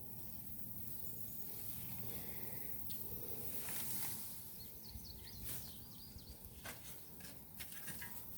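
Digging in garden soil: scattered scrapes and light ticks of a tool working the dirt over a low steady rumble, with a faint high chirp about halfway through.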